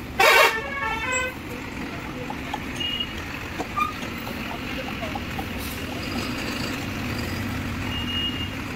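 Tata Ultra 1918 truck moving off with its engine running low and steady, and a short, loud horn toot about a quarter second in.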